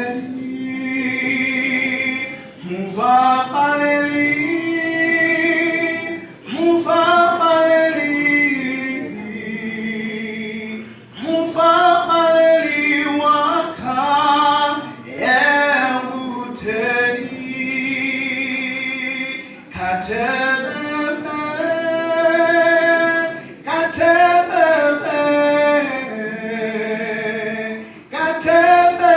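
Gospel singing in phrases of a few seconds, mostly unaccompanied voices, men's and women's.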